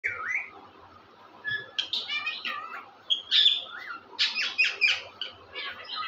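Caged green parakeets calling in a string of chirps, whistled glides and squawks, with a quick run of harsh notes a little after four seconds in.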